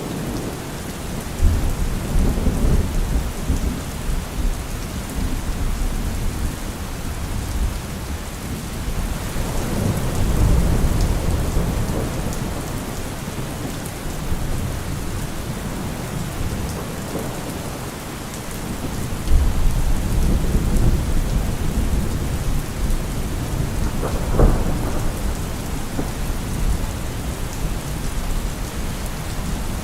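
Steady rain falling, with low rolls of thunder swelling and fading three or four times, and one sharper thunder crack near the end.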